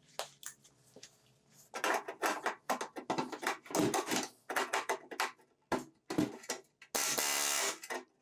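Pneumatic air hammer with a modified punch setting solid rivets through aluminum sheet, bucked from behind with a modified railroad spike: a string of short bursts of metallic hammering, then one longer steady burst near the end.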